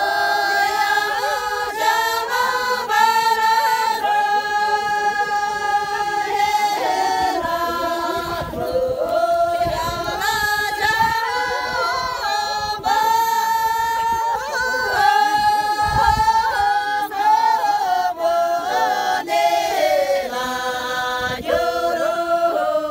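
A group of women singing together without accompaniment, a melody with long held notes.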